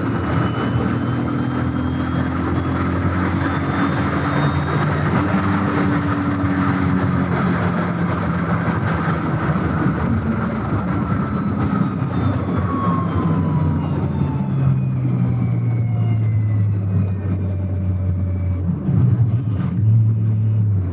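VW Golf 3's VR6 single-turbo engine pulling at motorway speed, heard inside the cabin over steady road and wind noise, with a thin high whine above it. The engine note sinks gradually in the second half as the car slows.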